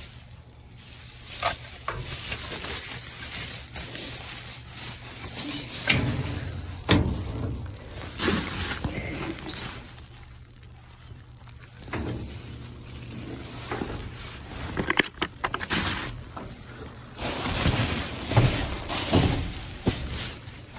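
Rummaging through trash in a metal dumpster: plastic bags and packaging rustle and crinkle in uneven bursts, with scattered knocks against the dumpster.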